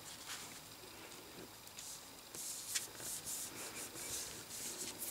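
Faint rustling and rubbing of hands and paper cards sliding over a tabletop, with a few soft ticks, busier in the second half.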